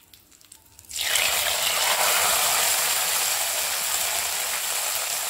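Hot-oil tempering of mustard seeds, dried red chillies, fenugreek and curry leaves poured into a pot of liquid sambar, sizzling loudly as the hot oil hits the liquid. The sizzle starts suddenly about a second in and holds steady.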